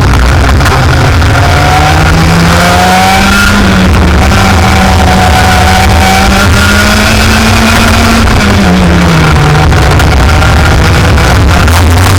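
Racing kart engine running hard, its pitch rising and falling with the revs, heard loud and close over a heavy low rumble.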